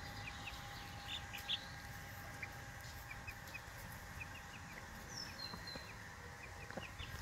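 Chicks peeping: short, high chirps repeated every fraction of a second, with a hen nearby.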